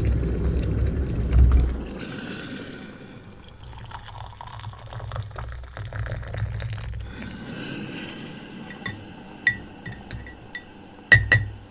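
A brew being made: a low rumble for the first two seconds, then liquid poured into a mug, then a teaspoon chinking against the mug about six times, loudest near the end.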